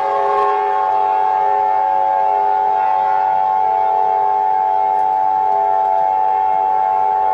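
Steady electronic alert tone: several pitches held together as one unbroken chord at a constant loud level, the kind of attention signal that opens an Emergency Alert System broadcast.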